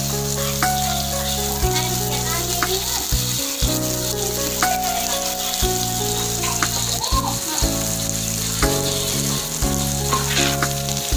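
Pork belly and bologna rolls wrapped around enoki mushrooms sizzling as they grill, a steady crackling hiss. Background music with sustained chords that change every second or two plays under it.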